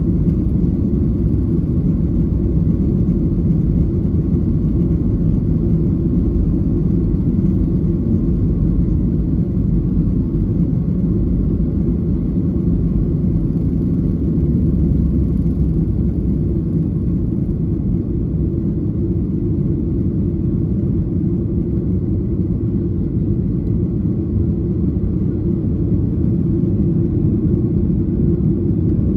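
Steady low rumble inside the cabin of a Boeing 737-800, the drone of its CFM56 turbofan engines and airflow, unchanging throughout.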